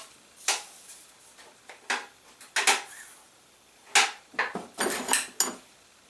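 Light clicks and knocks of hand work at a workbench: objects being handled and set down, about a dozen short sharp sounds at irregular intervals, bunched together around the fifth second.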